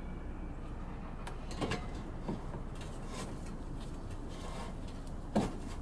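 A few short knocks and clinks of metal parts and tools being handled, the loudest about five seconds in, over steady low background noise.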